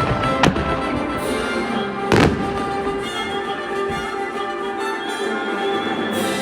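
Aerial fireworks shells bursting over music: a sharp bang about half a second in and one loud boom about two seconds in, with the show's music playing steadily underneath.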